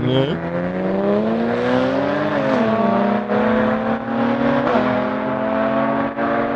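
Car engine accelerating hard through the gears. Its note climbs steadily, then drops at an upshift twice, about two and a half and five seconds in, and climbs again after each.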